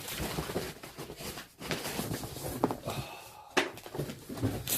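Cardboard box and packaging being handled and opened: rustling at first, then a few scattered knocks and clicks, the loudest about three and a half seconds in.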